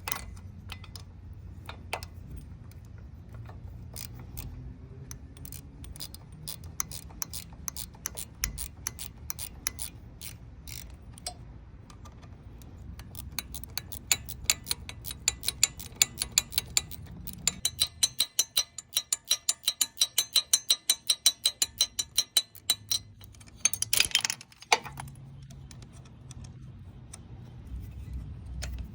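Hand ratchet wrench clicking as the intake manifold clamp bolts are turned out, in scattered short runs at first and then a long even run of about three clicks a second. A short louder metallic rattle comes near the end.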